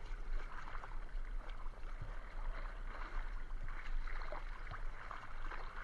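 Sea water splashing and sloshing as a surfboard is paddled through the water, an irregular wash with small faint splashes.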